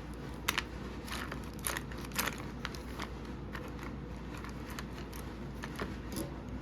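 A string of light, irregular clicks and taps, about a dozen, over a steady low hum.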